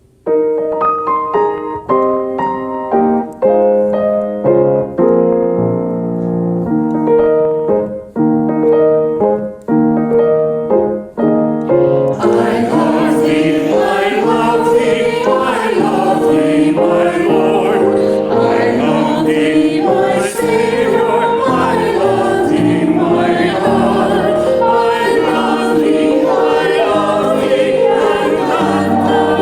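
Church music: a piano plays an introduction alone, then a choir comes in singing with the piano about twelve seconds in.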